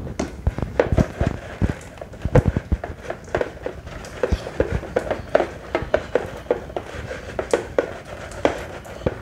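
Slime being kneaded and squished by hand to mix in paint, giving off irregular sticky clicks and pops, several a second.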